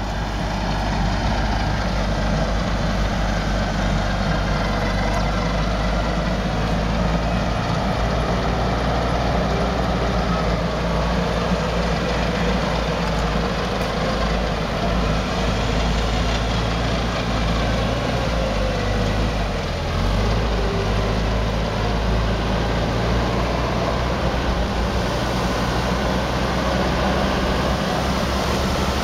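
Mitsubishi Pajero's engine running steadily at low revs as the vehicle is winched slowly forward through deep mud. The low engine note wavers briefly about two-thirds of the way through.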